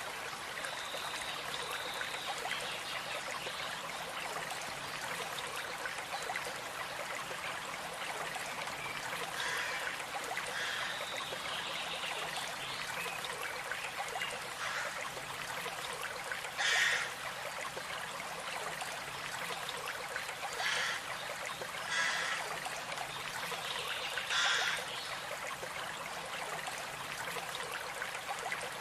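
Stream trickling steadily over rocks, with short bird chirps breaking through now and then, most of them in the second half.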